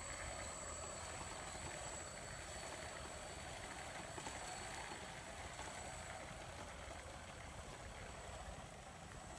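Small wheeled robot car's motors and wheels running over paving stones: a faint, steady rolling noise.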